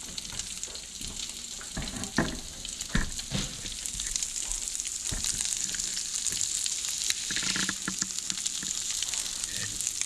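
Walleye fillets sizzling steadily as they fry in a hot pan, with a couple of sharp knocks about two and three seconds in.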